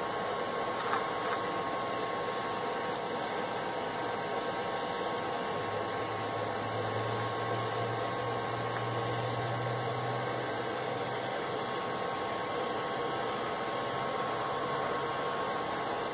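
Forge air blower running steadily: an even hiss with a thin high whine. A low hum joins in for several seconds midway.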